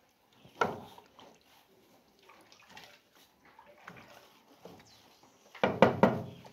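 Wooden spoon stirring a thick stew in an aluminium pot, with a sharp knock about half a second in and a quick clatter of several knocks against the pot near the end.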